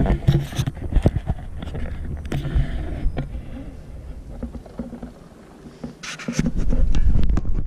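Wind buffeting the camera's microphone on a kayak: a loud low rumble broken by scattered knocks, heaviest in the first three seconds and again near the end.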